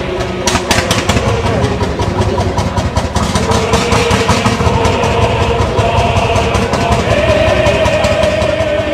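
Vintage tractor engine running with a steady, rapid beat of exhaust pulses, a little harder for a moment about a second in.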